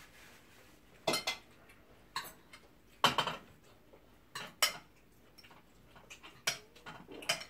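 Forks and spoons clinking and scraping against plates during a meal, in short, irregular strikes about a second apart.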